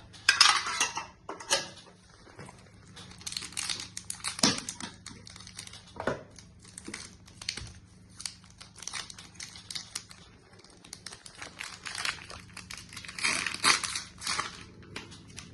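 Foil wrapper of a Pokémon trading-card booster pack crinkling and tearing as it is opened, in irregular rustles, loudest near the start and again near the end.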